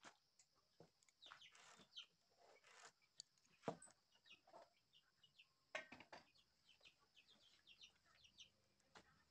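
Quiet, faint handling sounds: light knocks and scrapes of a steel try square and marker pen on a wooden door panel, the sharpest knock about a third of the way in as the square is set down. Faint, high chirping birds call in the background.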